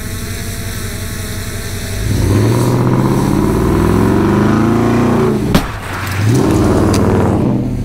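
Ram 2500 pickup's engine revving as the truck accelerates, its pitch climbing over a few seconds. About five and a half seconds in there is a sharp bang as the truck's steel grille guard hits a car at about 35 to 40 mph, and then the engine revs up again.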